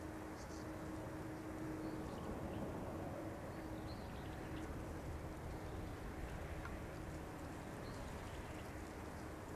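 Airbus A330-300's GE CF6-80E1 jet engines at takeoff thrust, heard as a low, steady rumble from down the runway while the airliner accelerates on its takeoff roll.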